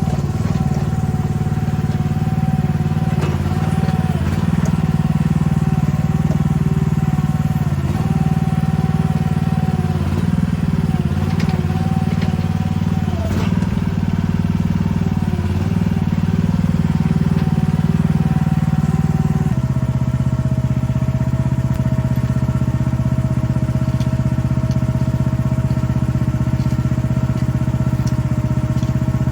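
Chinese mini excavator's engine running steadily, its note dipping briefly every few seconds as the machine takes load. About two-thirds of the way through it settles into an even, slightly lower note.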